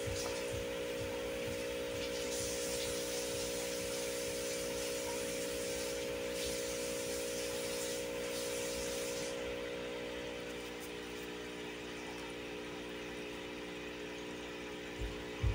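A steady machine hum with several held tones, under a hiss that fades out about nine to ten seconds in; a low thump comes at the very end.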